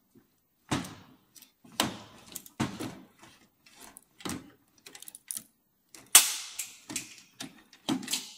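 Chain-type exhaust pipe cutter being squeezed and turned around an exhaust pipe: irregular metallic clicks and scrapes as its cutting wheels bite into the pipe wall. The loudest is a sharp scrape about six seconds in, as the cutter works through the last of the pipe.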